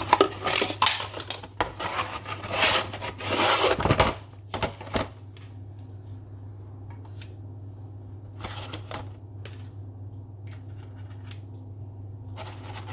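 Crinkling and rustling of a packet of dry lasagna sheets for about four seconds, then a few light clicks and short rustles as the stiff sheets are handled and laid in the tray.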